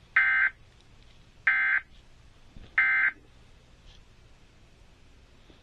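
Emergency Alert System end-of-message signal: the SAME digital data burst sent three times, each a short, harsh, buzzy chirp a little over a second apart, marking the close of the EAS test.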